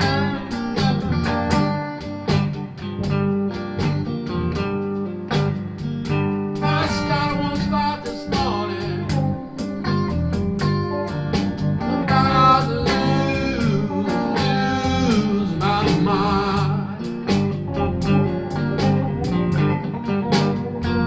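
Blues band playing: guitars over bass and drums keeping a steady beat, with bent, wavering lead notes in the middle.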